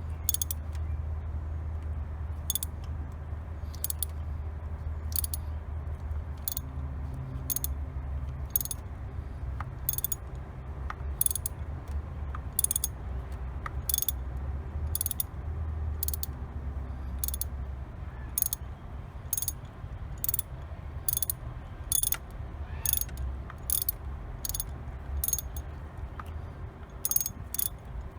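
Hand ratchet wrench clicking in short bursts on each back-swing, roughly once a second and unevenly spaced, over a steady low hum.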